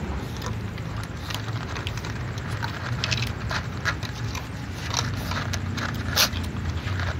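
Several cats crunching dry kibble, with irregular crunches and clicks from the food and the plastic dishes. One sharper click comes about six seconds in.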